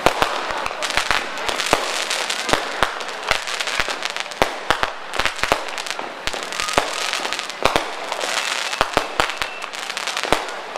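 Professional aerial firework display: a rapid, irregular string of sharp bangs from bursting shells, several a second, over continuous crackling from the stars.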